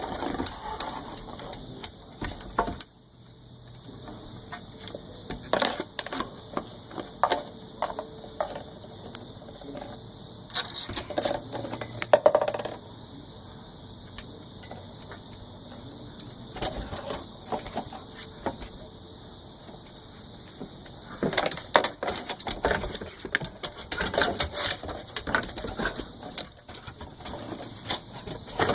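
Puppy's claws clicking and skittering on a hard floor in quick, irregular bursts as it runs around, with quieter spells in between.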